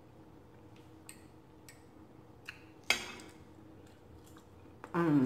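Close-miked mouth sounds of a person eating salad with a fork: quiet chewing with a few small clicks, and one sharp wet smack about three seconds in. Near the end comes a short hummed sound that falls in pitch.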